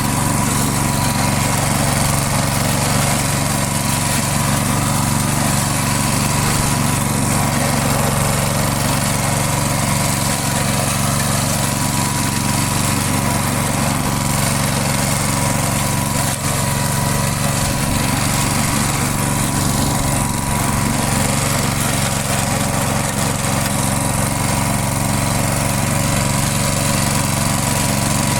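Briggs & Stratton engine of a push lawn mower running steadily at a constant speed, sounding smooth and even.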